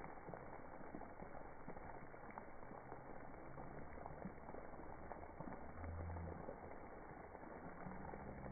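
Splash-pad water jets and sprays, slowed down and pitched low, heard as a faint, muffled, crackling rush. A few low drawn-out hums rise out of it, the slowed voices of children, the strongest about six seconds in and another near the end.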